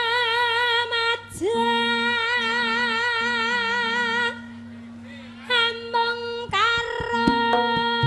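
A sinden (female Javanese vocalist) singing long held notes with a wide, even vibrato into a microphone, breaking for about a second in the middle. A quieter low steady tone sounds underneath.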